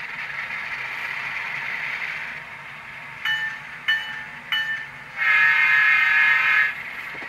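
Model diesel locomotive's Tsunami sound decoder playing through its small onboard speaker: the diesel engine runs steadily, then the horn gives three short toots followed by one long blast, the loudest part.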